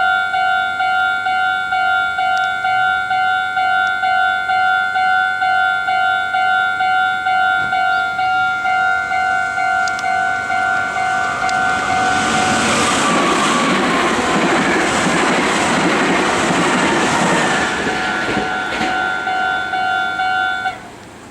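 Japanese level-crossing electronic warning bell dinging in a steady repeating rhythm. Partway through, a Meitetsu train passes over the crossing, rumbling with wheel clicks over the rail joints and a falling whine. The bell stops abruptly near the end as the crossing clears.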